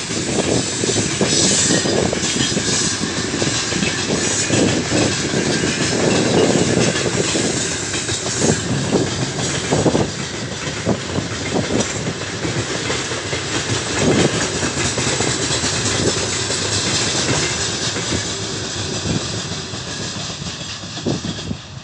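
Heavy freight train of open gondola wagons rolling past: steady wheel and rail rumble with irregular clickety-clack knocks as the wheels cross the rail joints, fading near the end as the last wagon goes by.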